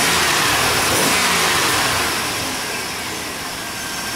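1996 GMC truck engine blipped by hand at the throttle, rising in the first second or two and settling back toward idle near the end. It runs smoothly without jumping, its distributor cap freshly cleaned of crust.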